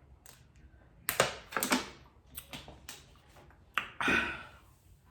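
Eating mouth sounds: a quick run of wet clicks and smacks about a second in, a few softer ticks after it, then a short breathy exhale about four seconds in.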